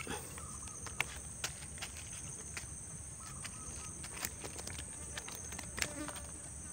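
Steady high-pitched insect drone, crickets or cicadas, with scattered light clicks and taps of handling every second or so.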